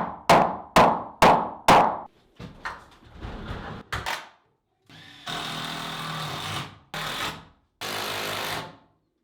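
A hammer striking about twice a second, five ringing blows, then a power drill running in three short bursts, driving fasteners into wooden framing.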